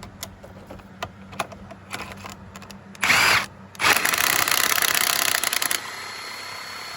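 A few light clicks and knocks, then a Milwaukee cordless driver with a 1/4-inch chuck gives a short burst about three seconds in. It then runs hard for about two seconds and carries on more quietly and steadily, driving screws.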